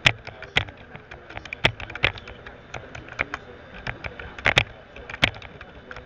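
Irregular sharp clicks, several a second, with a few much louder ones scattered through.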